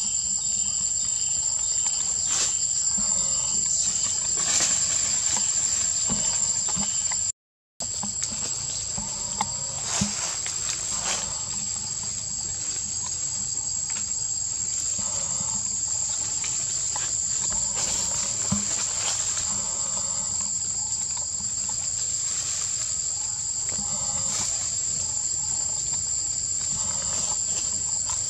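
Steady, high-pitched drone of an insect chorus, with a fainter, lower second band beneath it. The sound drops out completely for a moment about seven seconds in, and a few faint clicks and rustles come through at times.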